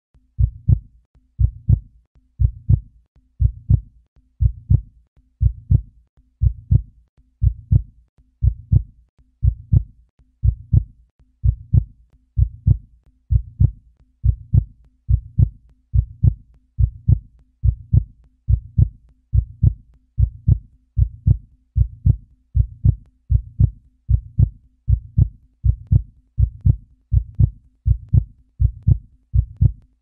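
Heartbeat sound effect: steady low "lub-dub" double thumps repeating about once a second.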